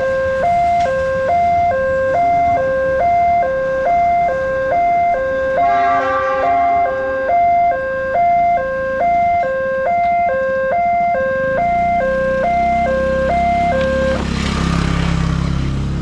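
Indonesian railway level-crossing warning siren: a fast electronic two-tone alarm switching between a low and a high pitch about one and a half times a second. It cuts off about fourteen seconds in, while a low rumble of motorcycle engines builds as traffic moves over the crossing.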